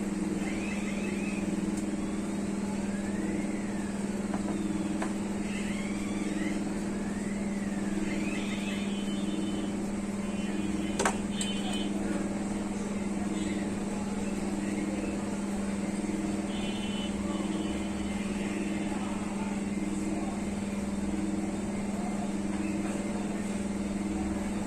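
A steady low mechanical hum with a faint pulse about once a second, with scattered faint high chirps and a single sharp click about eleven seconds in.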